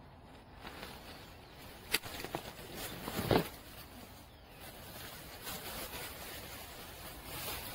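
Scissors snipping a mandarin orange's stem: a sharp click about two seconds in, then a louder dull thump about a second later, with rustling of leaves as a gloved hand moves through the branches.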